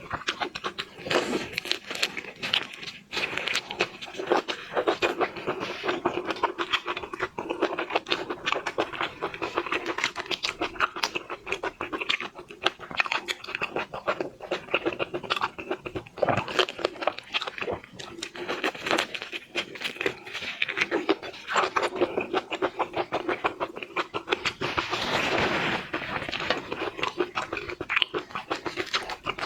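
Close-up eating sounds of shellfish: shells cracking and crackling as they are broken open, with chewing and biting throughout.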